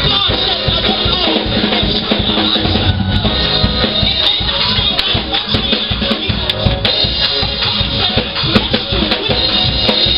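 Band music with a drum kit playing a beat of bass drum, snare and rimshots.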